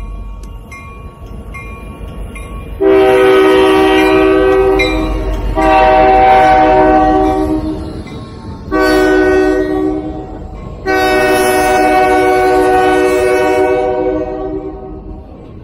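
Diesel locomotive air horn, from the GP60 working the local, sounding a chord of several notes in four blasts: long, long, short, long. This is the standard grade-crossing warning. A low engine rumble runs underneath.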